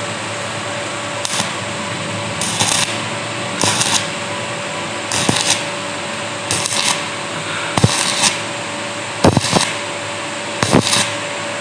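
Stick arc welding with a steel rod: short crackling arc strikes, about one every second and a half, over a steady hum. The welds build up the worn, cut edge of a Hero Splendor gearbox's gear selector, a fault that makes third gear slip out.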